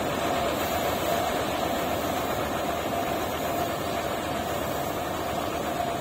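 HIND combine harvester running steadily while cutting and threshing a standing paddy crop: constant engine and machinery noise with a steady hum.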